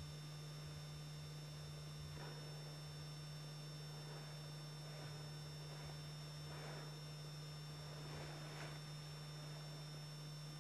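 Low, steady electrical hum with faint hiss from the recording itself, and a few faint, brief, soft sounds scattered through it; no clear animal call.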